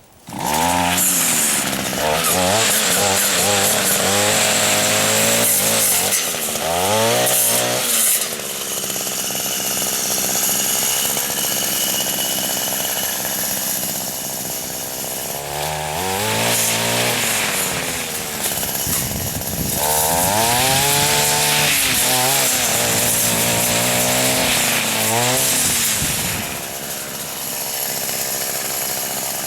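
Echo string trimmer's two-stroke engine starting up loud and revving up and down repeatedly under throttle, driving a 7¼-inch circular saw blade fitted in place of the string head.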